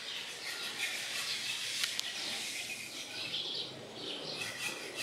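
Outdoor ambience with birds chirping over a steady background hiss, and two short sharp clicks about two seconds in.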